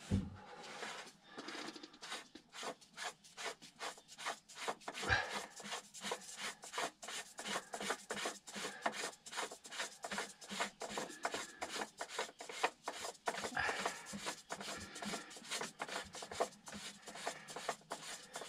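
Gloved hands rubbing and working at a plastic through-hull transducer fitting, a quick run of short rubbing strokes about three a second.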